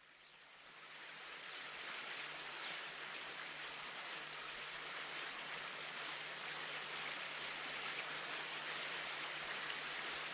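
Steady rushing of falling water, fading in from silence over the first couple of seconds.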